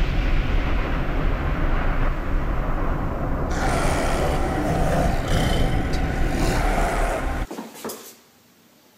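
A loud, low rumbling horror drone with no clear tune, taking on a brighter hiss about three and a half seconds in, then cutting off abruptly about seven and a half seconds in, leaving near silence.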